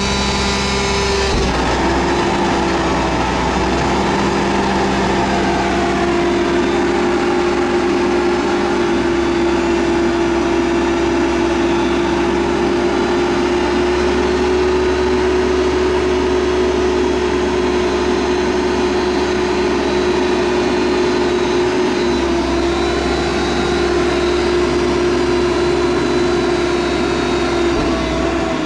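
Mack MR front-loader garbage truck's diesel engine running as the truck creeps forward, with a strong steady tone whose pitch shifts slightly a few times.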